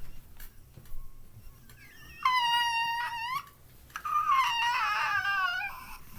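High-pitched whimpering: two drawn-out whining cries. The first is held steady with a short upturn at its end. The second wavers and slides downward.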